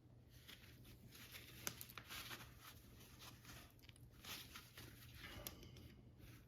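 Faint handling noise of a crimper for non-insulated terminals being fitted onto a heat shrink connector and squeezed, with light scratching and rustling and a couple of sharp clicks, the clearest under two seconds in.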